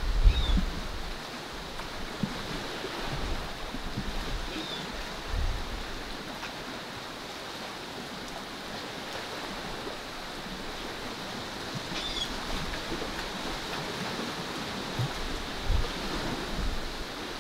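Steady outdoor wind and surf noise on the coast, with a few low wind buffets on the microphone. Three faint, short, high chirps from a distant bird come about half a second in, near five seconds and near twelve seconds.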